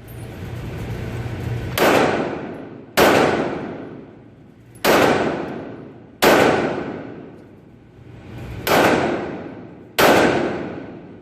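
Kriss Vector SBR 9mm carbine fired in single shots, six spaced about one to two and a half seconds apart. Each shot is followed by a long echoing tail.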